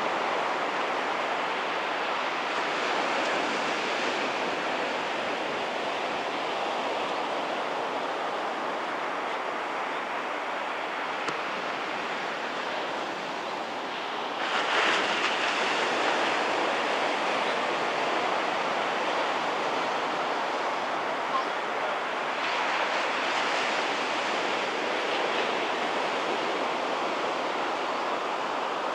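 Small thigh-to-waist-high surf breaking close to shore: a steady wash of waves, with one louder wave breaking about halfway through.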